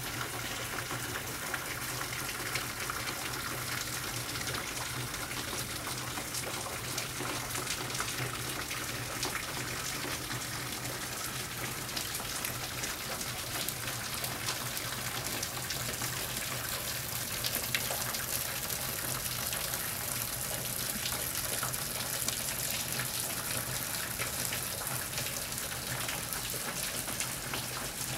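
Rain falling on a window: a steady hiss with many small drop taps scattered through it.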